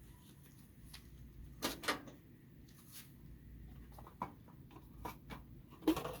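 Handling noises: a scattering of short clicks and knocks as things are moved about, a pair close together about two seconds in and the loudest knock near the end.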